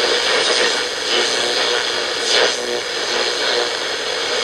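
Tecsun GR-88 analog radio's speaker hissing with heavy static, a weak broadcast faintly audible under the noise: poor reception, which the owner puts down to being below ground level.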